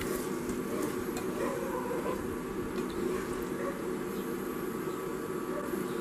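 Scrambled eggs sizzling softly in a pan on an Ikea TILLREDA induction cooktop, over the hob's steady hum of several low tones. A spatula pushes the eggs around with a few faint scrapes.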